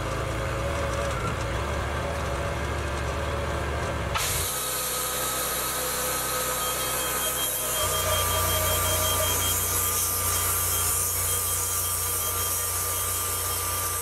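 Wood-Mizer portable bandsaw mill running on its engine. About four seconds in a high hiss rises suddenly as the band blade is engaged. From about eight seconds the engine note grows fuller and heavier as the sawhead feeds the blade into the log.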